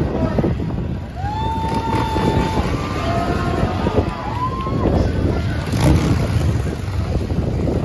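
Motorcycle engines running at a drag race, a dense steady rumble, with a few drawn-out high tones in the middle.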